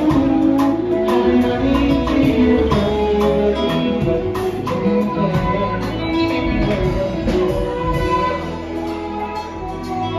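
Live band playing: a drum kit keeps a steady beat of about two hits a second under guitar and a singing voice.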